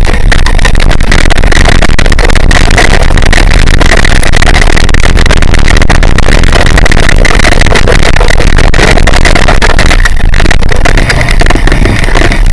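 Heavy wind buffeting and rumble on a bike-mounted camera's microphone, with constant rattling and clatter as the bike runs fast over a rough dirt trail. The noise is loud throughout and eases briefly near the end.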